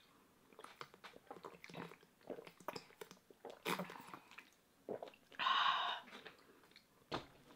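Person drinking from a plastic water bottle: faint gulps and small mouth and bottle clicks, then a short breathy exhale about five and a half seconds in as the bottle comes away from the mouth.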